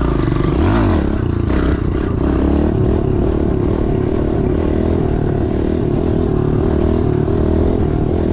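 Kawasaki KLX110L pit bike's small single-cylinder four-stroke engine running under a rider. About half a second in it revs up and back down, then holds a steady note while cruising.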